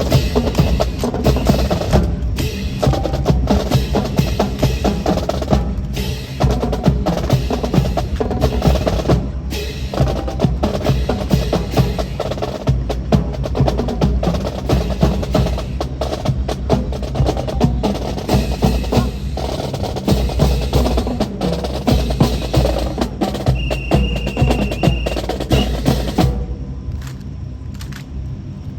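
Honour guard fancy drill: rapid wooden clacks and knocks of drill rifles being slapped, spun, caught and grounded in quick rhythmic runs, stopping near the end. A brief high steady tone sounds shortly before they stop.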